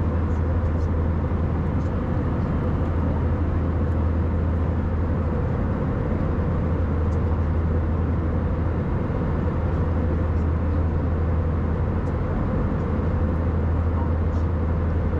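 Steady cabin noise inside an Airbus A319 airliner: a low engine drone with a rushing noise over it, unchanging throughout.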